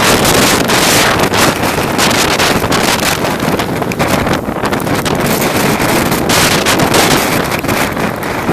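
Hurricane wind buffeting the microphone in loud, gusting rushes over the roar of storm waves breaking in the bay.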